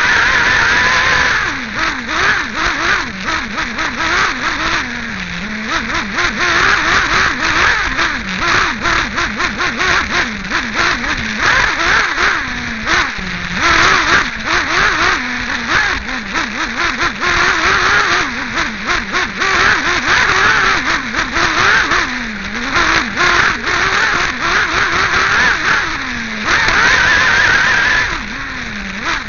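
Team Associated RC8B 1/8-scale nitro buggy's two-stroke glow engine, heard from right beside its cylinder head, revving up and dropping back over and over as the buggy accelerates and brakes around a dirt track. Frequent knocks and rattles come through over the engine.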